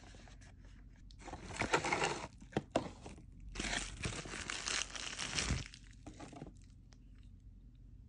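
Toy packaging handled and torn open by hand: a cardboard blind box ripped open about a second in, then a longer stretch of crinkling and tearing as the doll's bubble-wrap plastic bag is pulled apart, with a couple of sharp clicks between.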